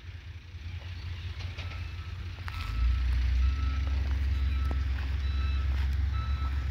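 A vehicle's reversing alarm beeps about once a second with short, high beeps, over a low rumble that grows louder about three seconds in.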